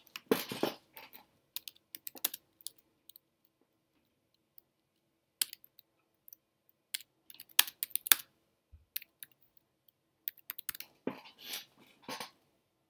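Typing on a computer keyboard: scattered, irregular key clicks in short runs with pauses between them.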